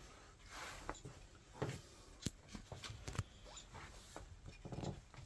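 Faint rustling and small clicks of hands working wires and a crimp connector, with a few sharp clicks around the middle.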